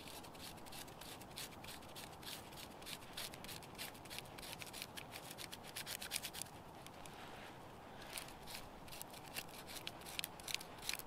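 Knife blade scraping damp birch bark against a stone, shaving it into tinder for a fire steel: a quiet, rapid run of short scratchy strokes, with a brief pause a little past halfway.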